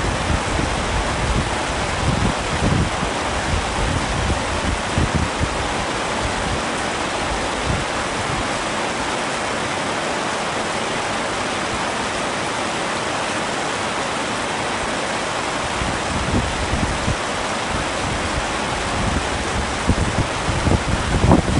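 Heavy rain falling on a tent: a steady, dense hiss. Low gusty swells come through now and then, strongest near the end.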